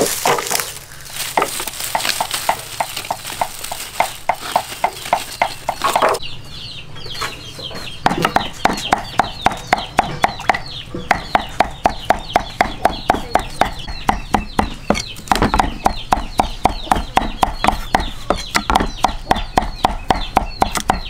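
A large kitchen knife chopping white vegetable stalks on a wooden chopping board, about four even chops a second, pausing briefly about six seconds in.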